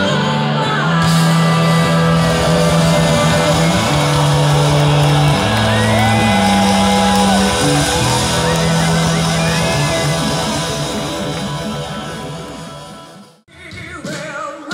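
Live rock band playing, with a singer over sustained bass notes and guitar, heard from within the crowd at an outdoor concert. The music fades out near the end and is followed by a brief cut to a different passage.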